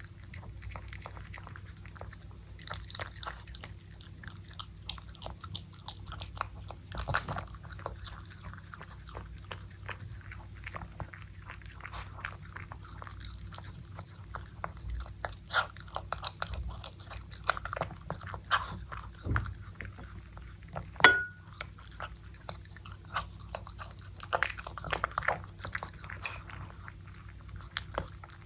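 Puppy eating salmon tartare: steady chewing and biting with many small clicks. One brief high squeak about three-quarters of the way through.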